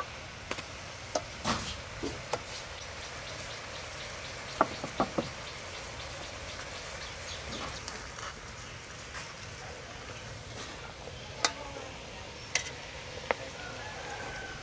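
Braising liquid bubbling and sizzling around a whole chicken in an aluminium pot, a steady fizzing simmer. A few sharp clicks and knocks are scattered through it, the loudest about 4.6 s and 11.5 s in.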